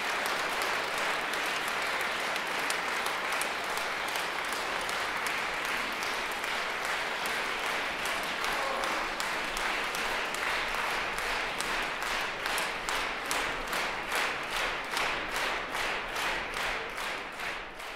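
Concert audience applauding in a hall, a dense even clapping that, in the last several seconds, falls into rhythmic clapping in unison.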